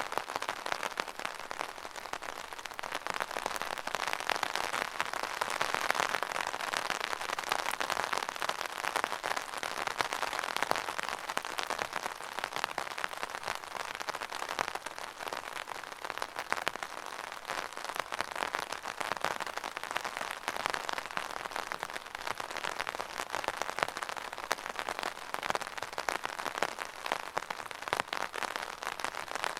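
Rain falling steadily on a hard surface, a dense patter of many small drops.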